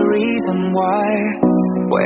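Background music: a wavering melody over held chords, with a new chord coming in about one and a half seconds in.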